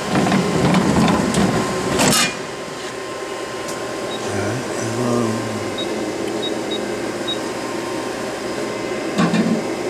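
Okuma Cadet LNC-8C CNC lathe running with coolant spraying inside its enclosure. A loud rush for the first two seconds ends in a sharp clunk, after which the machine runs steadier and quieter, with a few faint short high beeps midway.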